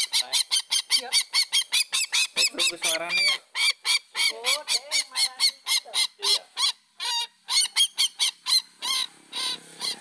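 Sintar (ruak-ruak Papua) rail calls repeated rapidly, about three short calls a second, with a brief break about seven seconds in: the bird's lure call used to draw it in.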